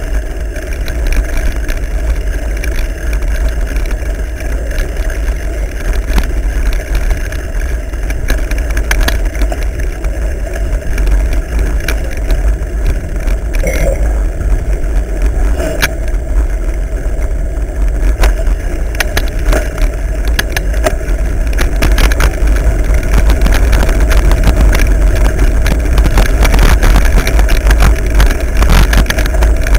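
Mountain bike riding over a dirt forest trail, heard through the bike-mounted camera: a loud, steady rumble of wind and trail vibration with frequent sharp rattles and knocks, growing louder over the last several seconds.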